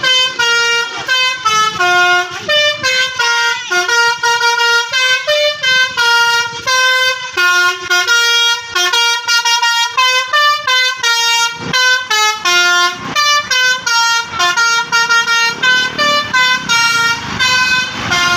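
Basuri telolet bus horn, a multi-trumpet musical air horn, playing a fast tune of stepped notes one after another without a break.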